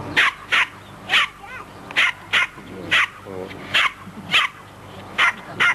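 Plummer terrier yapping: about ten short, sharp, high-pitched barks, mostly in quick pairs, coming roughly once a second.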